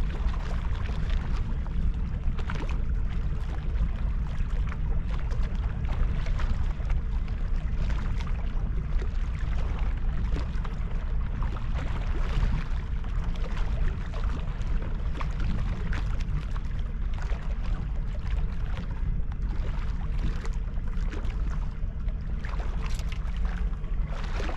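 Riverside ambience: a steady low rumble of wind and water, with scattered light ticks and splashes.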